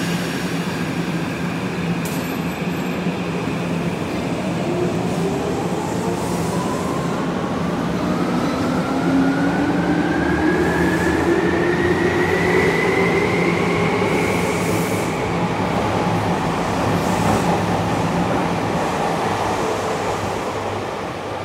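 Tokyo Metro Ginza Line subway train running, with steady rumbling noise from the wheels and track. From about four seconds in to about fourteen seconds in, an electric whine rises steadily in pitch as the train picks up speed, then levels off.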